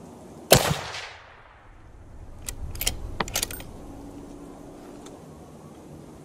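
A single rifle shot from a scoped rifle firing a hand-loaded 168-grain Hornady A-Max round, about half a second in, its report dying away within about half a second. Roughly two seconds later comes a quick series of light metallic clicks, the rifle's action being worked to chamber the next round.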